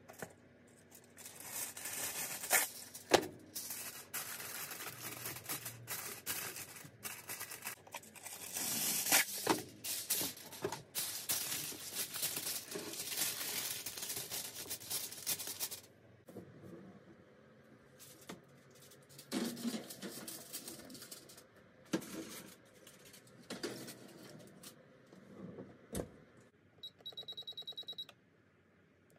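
Aluminium foil crinkling and tearing as it is pulled from the roll and crimped over baking dishes, with knocks from handling the dishes. Near the end, a quick run of short beeps from a Whirlpool electric oven's control panel as the timer is set.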